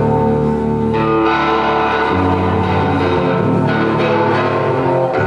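Amplified electric guitar tuned down to drop D, playing sustained chords and single notes that change every second or so, with low notes ringing underneath.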